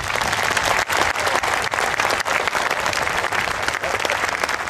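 Applause from a large crowd: dense, steady clapping with some sharper nearby claps standing out.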